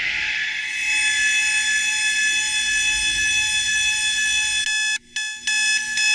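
An electronic alarm clock's beeping fed through an Eventide Space reverb pedal, smeared into a steady held tone with many ringing overtones. It drops out briefly about five seconds in, then carries on.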